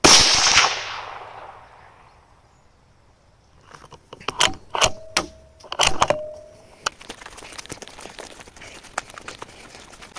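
A single .22 WMR rifle shot, the loudest sound, ringing out and fading over about a second and a half. About four seconds later comes a quick run of sharp metallic clicks and clacks, followed by faint scattered crackling.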